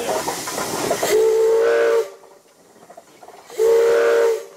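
The steam whistle of a 1915 Baldwin 0-6-2T locomotive gives two short blasts, one about a second in and one near the end, each lasting under a second. Before the first blast, steam hisses.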